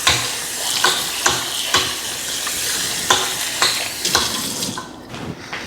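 Food sizzling in a hot pan, with a utensil knocking and scraping against the pan at irregular short intervals. The sizzle drops away about five seconds in.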